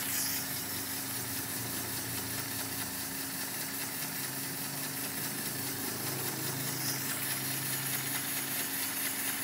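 Homemade scrap-built piston engine running on compressed air from a compressor, its flywheel turning, with a steady hiss of air over a low mechanical running sound that shifts a little in the middle.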